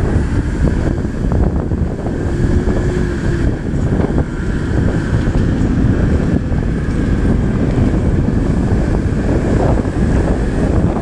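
Heavy wind noise buffeting the microphone of a camera moving along a road, over the steady rumble of a vehicle underneath.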